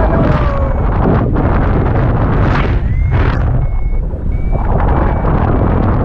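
Wind rushing over the microphone in paraglider flight, with a flight variometer sounding short high beeps that come more often in the second half, one of them rising in pitch: its climb tone, the sign of rising air.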